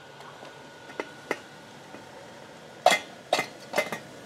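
Small battery-powered 5-volt blower fan on a wood-gas camping stove running with a faint steady hum. About a second in there are two light clicks, and near the end three louder sharp knocks, each about half a second apart.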